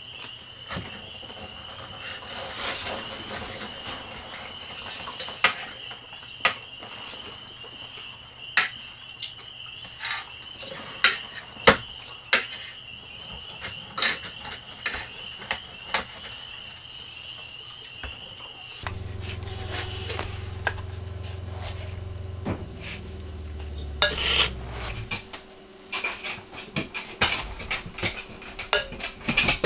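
Knives and forks clicking and scraping on plates as steak is cut and eaten, over a steady high tone. About two-thirds through the sound changes to a low hum, and near the end a metal spoon clinks while scooping ground coffee from a tin into a glass French press.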